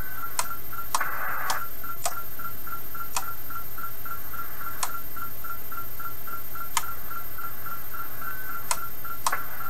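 Kenwood TS-430S HF transceiver stepping through its bands: sharp clicks from the band button and its switching relays, about nine in all, over the receiver's steady hiss and a pulsing tone about three times a second. The hiss swells briefly about a second in. The hiss coming and going as the relays switch is the sign of dirty relay contacts.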